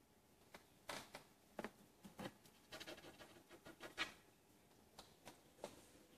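Light scratches and taps of a kitten's claws on a carpeted cat tree as it shifts and climbs, a string of separate clicks with a quick flurry of them about three to four seconds in.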